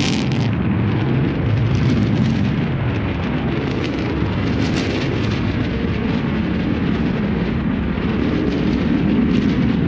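New Shepard's BE-3 liquid-hydrogen, liquid-oxygen rocket engine at full thrust during ascent: a steady, deep rumble with crackle over it, loudest at the very start.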